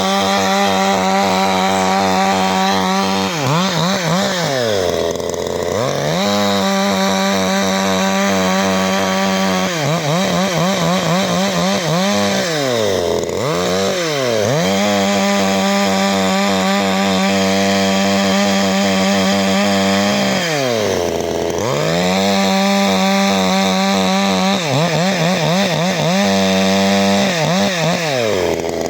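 CanFly 54.6 cc two-stroke chainsaw running at high revs, most likely cutting frozen wood. Its engine note holds steady, then dips and climbs back about seven or eight times, either as the throttle is eased off and reopened or as the chain loads up in the cut.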